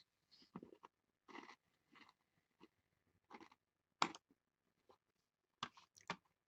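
Near silence, broken by faint scattered clicks and rustles, about eight in all, the sharpest about four seconds in.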